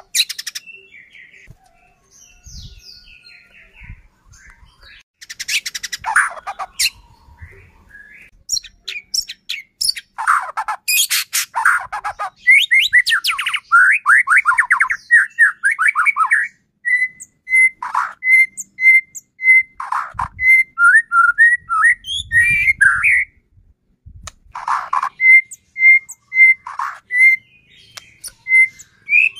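White-rumped shama (murai batu) in full song: a varied run of whistled phrases and fast sweeping note series, with a clear note repeated about twice a second in two stretches.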